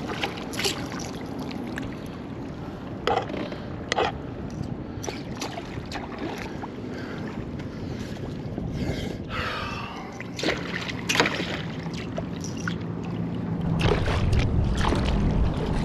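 Handling noise aboard a kayak during a fight with a hooked fish: scattered sharp knocks, with wind rumbling on the microphone and growing louder over the last couple of seconds.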